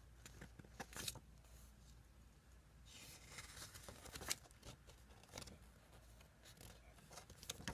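Faint handling noises of toy packaging and a small paper booklet: scattered light clicks and a soft paper rustle about three seconds in, otherwise near silence.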